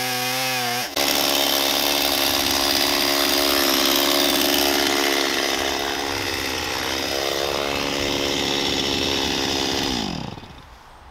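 Two-stroke chainsaw on an Alaska chainsaw mill at full throttle, ripping lengthwise through a black walnut log, its engine pitch steady under load with a short break about a second in. Near the end the throttle is released as the cut finishes, and the engine winds down, falling in pitch and level.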